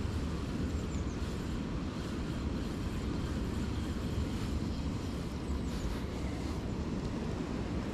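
Wind buffeting the microphone outdoors: a steady low rumble that stays even throughout.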